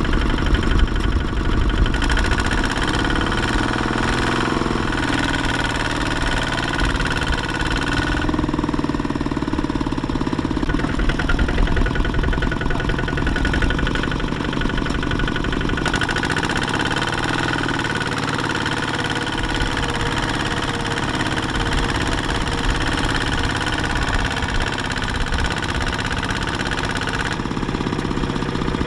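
Small Kubota walking tractor's single-cylinder diesel engine running, its note changing a few times.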